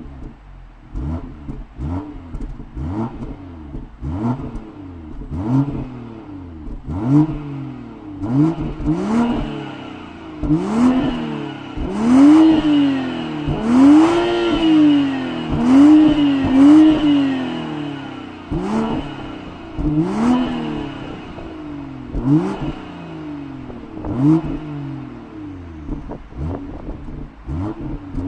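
2020 BMW M340i's stock 3.0-litre turbocharged inline-six (B58) blipped repeatedly while stationary and warm in Comfort mode. Each blip rises and falls, with a run of bigger, longer revs in the middle and sharp cracks between blips.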